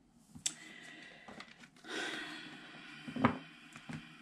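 Faint clicks and soft rustling, with one sharper tap a little after three seconds.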